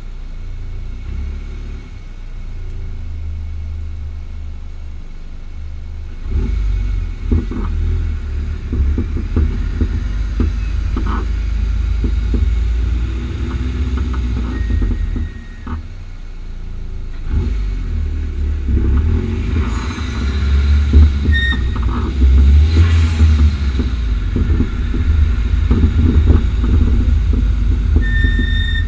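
Car's front-right coilover, a Bilstein PSS9 with H&R springs, popping and knocking again and again over the road under a low road rumble, with a few short high squeaks. The sound is a fault the owner has not traced, and it comes back after two repairs.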